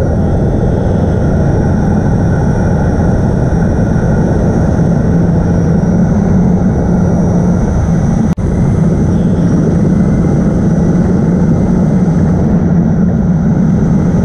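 Hexacopter drone's electric motors and propellers running loud and steady as it climbs, heard close from on board, with a steady low hum. The sound breaks off for an instant about eight seconds in.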